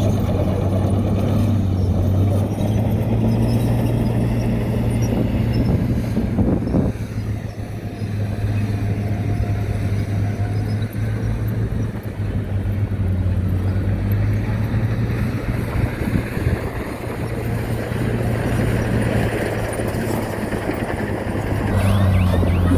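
Heavy diesel engine of earthmoving machinery running steadily with a deep, even hum. The sound dips briefly about seven seconds in.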